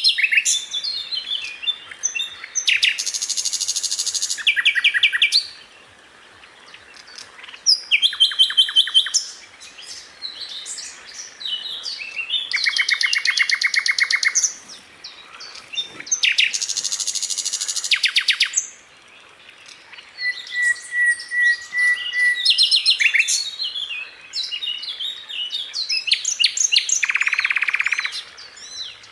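A sikatan londo flycatcher sings a varied song. Fast rattling trill rolls, five of them, alternate with sharp chirps and whistled notes, with short gaps between phrases.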